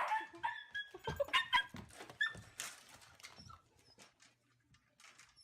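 Dog whining in a series of short high-pitched cries over the first couple of seconds, then trailing off into faint clicks and scuffs.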